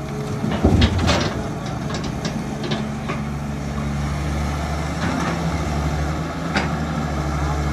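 John Deere 595 excavator's diesel engine running with a steady low drone. About half a second in, a bucketload of earth and stones pours into the steel dump-truck bed with a loud rattling rush, followed by a few sharp clanks as the arm swings back.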